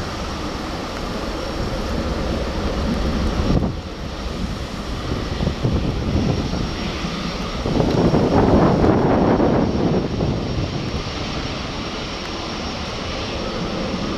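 Jet engines of a Japan Airlines Airbus A350 (Rolls-Royce Trent XWB) running as the airliner rolls on the ground: a steady rushing rumble that swells louder for a couple of seconds past the middle, then settles.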